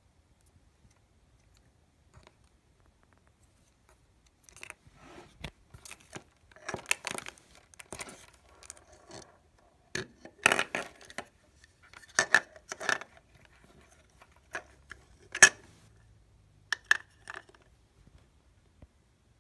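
Hard plastic EarPods case and packaging being handled and opened: an irregular run of plastic clicks, taps and rattles starting a few seconds in, the sharpest about ten and fifteen seconds in.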